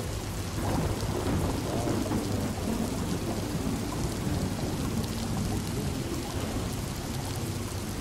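Steady rain against windows, with a low rumble of distant thunder swelling about a second in and rolling on.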